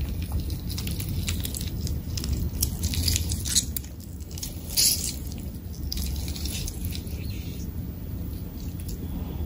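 Close-miked chewing and eating of mutton curry with rice: wet, squishy mouth sounds and smacking, with a cluster of sharper crunchy clicks a few seconds in and another about halfway, over a steady low hum.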